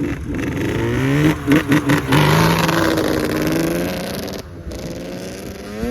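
A motor vehicle engine revving hard: its pitch climbs, breaks off in a few quick throttle chops about a second and a half in, then holds high and slowly falls away as the level drops near the end.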